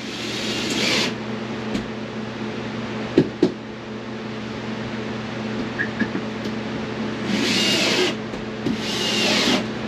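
Cordless Ryobi drill driving wood screws into a 2x4 frame: three short runs of the motor whining, near the start and twice near the end, with a couple of knocks in between. Fans hum steadily underneath.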